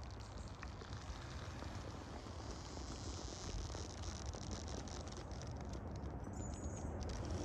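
Faint outdoor background noise: a steady low rumble and a light hiss, with scattered faint ticks.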